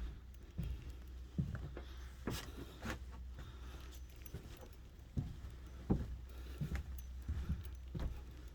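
Irregular footsteps thudding on the bare floor of an unfinished house, with a light metallic jingle and a steady low rumble of handling or air noise.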